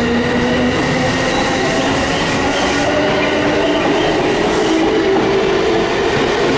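Tokaido Line electric commuter train running alongside a station platform, its motors whining in tones that climb slowly in pitch over a steady rumble of wheels: the sound of the train pulling away and speeding up.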